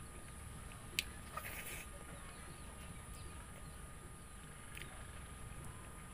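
Close-miked chewing and mouth sounds of someone eating rice by hand, with a sharp click about a second in and another near five seconds, over a steady low hum.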